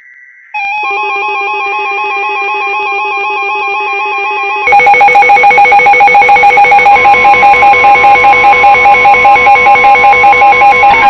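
Electronic emergency alert tones: a warbling two-pitch 'wee woo' tone starts about half a second in. A few seconds later it jumps much louder into a harsh, rapidly pulsing alarm at about four or five pulses a second. A steady tone joins underneath partway through.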